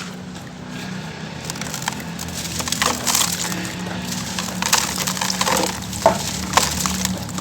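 Crumbly charcoal crunching and crackling as it is poured and crumbled, with sharp snaps around three, five, six and six and a half seconds in.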